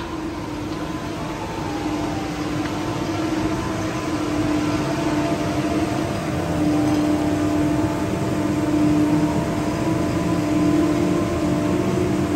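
Cable car station machinery running: a steady mechanical hum with several held tones, growing gradually louder.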